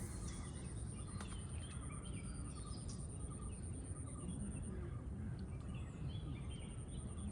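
Outdoor ambience: a steady low rumble with faint, scattered bird chirps and a thin, steady high-pitched insect drone.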